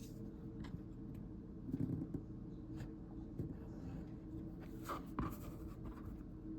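Hand tool scratching and scraping across leather on a work surface, in short irregular strokes with light clicks and taps; the strongest strokes come about two seconds in and about five seconds in.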